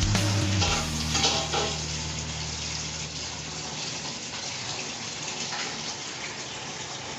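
Rice and potatoes boiling in a steel pot: a steady bubbling hiss of the cooking liquid, with background music fading out in the first second.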